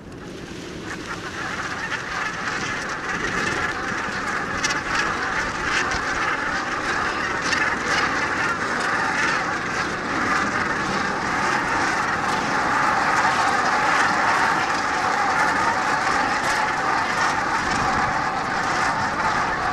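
A loud, steady rushing noise that swells up over the first couple of seconds and then holds, like a train going by.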